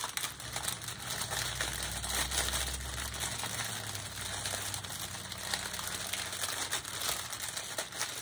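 Clear plastic bag crinkling and rustling as hands sort through the small plastic packets of diamond-painting drills inside it.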